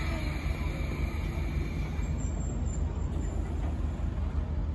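The tail of a steam locomotive whistle fading out in the first second, then a steady low rumble with a faint hiss. The locomotive is a Type 9600, No. 49671, which now runs on compressed air.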